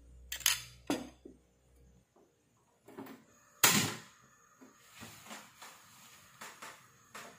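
Kitchenware being handled: a few sharp knocks and clatters, the loudest about three and a half seconds in, as a bowl is set down and a stainless steel frying pan is placed and handled on a gas stove.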